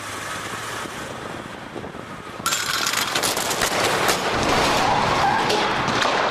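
Full-size armored car in a stunt run: a vehicle running, then about two and a half seconds in a sudden loud burst of crashing with many rapid cracks that goes on for several seconds.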